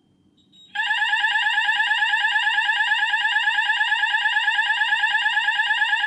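Apollo Series 65 fire alarm sounder base sounding in alarm after its detector is triggered for a test: a loud electronic tone made of fast rising sweeps repeated many times a second, starting under a second in.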